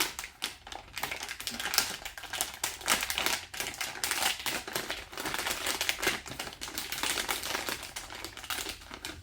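Plastic resealable bag crinkling and crackling in quick, irregular clicks as it is handled and pressed shut around a lump of modelling clay.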